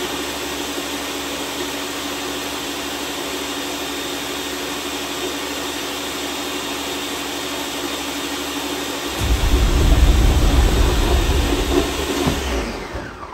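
Countertop blender running steadily, crushing ice for a smoothie. About nine seconds in, a heavier, deeper rumble joins for a few seconds, then the sound fades away near the end.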